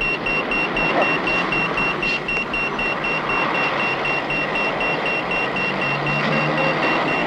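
Pelican crossing's audible signal giving a rapid run of short, high-pitched beeps, the sign that the green man is lit and pedestrians may cross, over the steady noise of road traffic.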